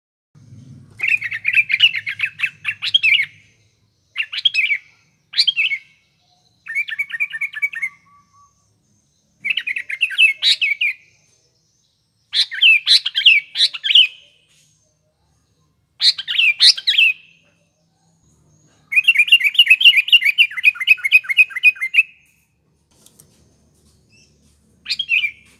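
Sooty-headed bulbul (kutilang) singing in a lively way: short phrases of quick notes repeated with brief pauses between them, the longest phrase near the end.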